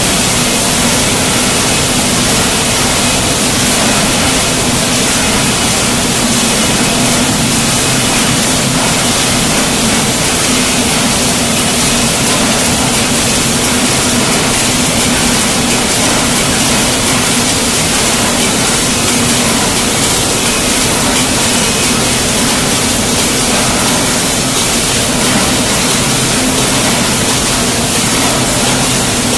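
Steady, loud machine noise of a running automatic 5 L tinplate paint can body production line: conveyors carrying can bodies, with a constant low hum under a dense hiss of fine clatter.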